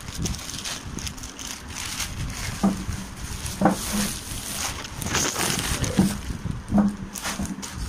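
Thin plastic courier bag crinkling and rustling as it is handled and pulled open, with several dull knocks from handling in between.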